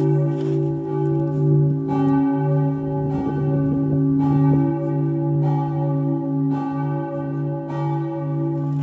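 Large church-tower bells of a tower clock, struck by electromagnetic hammers: a strike roughly every second, each ringing on so that the deep tones of the two bells overlap in a continuous hum.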